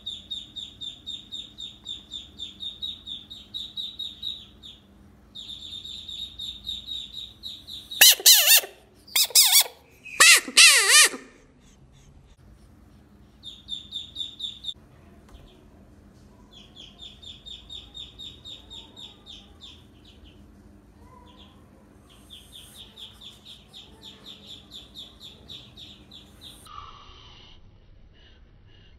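Frog screaming: three loud, wailing distress cries in quick succession about eight to eleven seconds in. Between them come runs of high, rapid chirping, a few chirps a second, lasting several seconds at a time.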